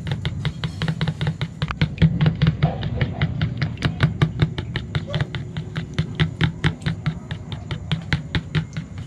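Eggs being beaten in a bowl with a utensil: a rapid, even clicking at about six strokes a second.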